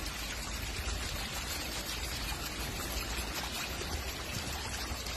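Water running steadily, an even trickling rush with no breaks.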